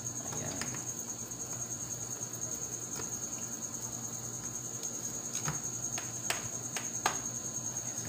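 A few short clicks and taps of wires and a screwdriver being handled at a magnetic contactor's terminals, the sharpest about five to seven seconds in, over a steady high-pitched whine and a low hum.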